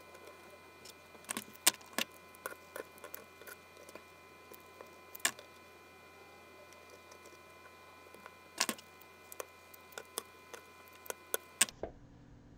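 Scattered light clicks and taps at irregular intervals, some in quick pairs, as fingers and tweezers handle and press down the fine wires of mini LED string lights on an MDF board.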